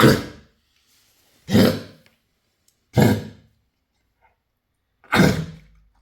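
Australian Shepherd coughing four times, short harsh coughs spaced one to two seconds apart: kennel cough.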